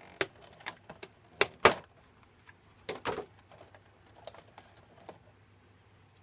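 Irregular sharp clicks and light knocks of a small die-cast model and its packaging being handled. They are loudest in the first second and a half and again around three seconds in, then fainter and sparser.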